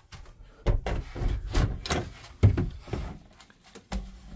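A motorhome's interior door being unlatched and opened, with a run of clicks, knocks and handling bumps over a few seconds.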